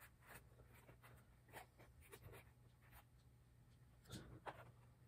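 Faint scratching and rustling of fingers packing moss into small plastic pots around orchid seedlings. A scatter of short soft scrapes, the loudest two about four seconds in.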